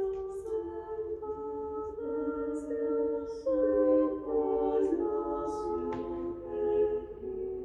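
Small women's vocal ensemble singing a cappella in soprano, mezzo and contralto parts: several voices hold sustained chords that move to new harmonies every second or so, with sung 's' sounds cutting through now and then.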